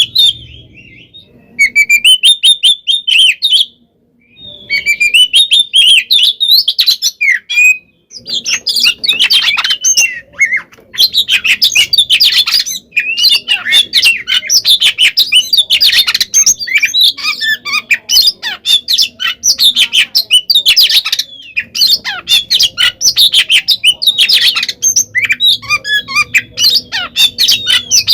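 Oriental magpie-robin (kacer) singing a loud, fast fighting song of rapid harsh and whistled notes. Short pauses break it in the first eight seconds, then it runs unbroken.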